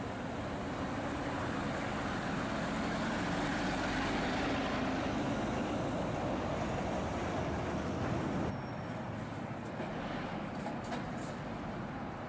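A heavy lorry driving past, its engine and tyre noise swelling to a peak about four seconds in. About two-thirds of the way through the sound cuts off suddenly to quieter, steady traffic noise.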